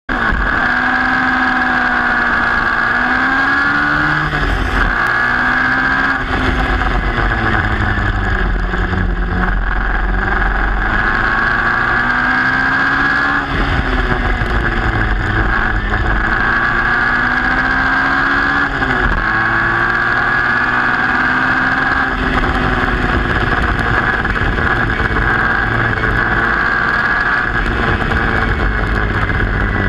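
Formula Junior race car's engine heard from onboard, racing hard: the engine note climbs through the revs and drops back at each gear change, again and again.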